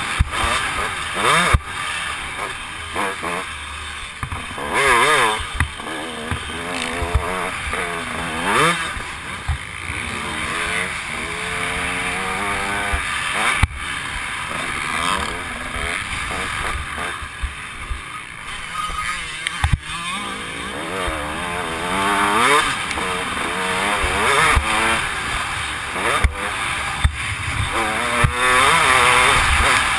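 Dirt bike engine revving hard, its pitch climbing and dropping again and again as the rider accelerates, shifts and backs off around a motocross track. Wind rushes over the helmet microphone the whole time, and sharp knocks come through now and then from bumps and landings.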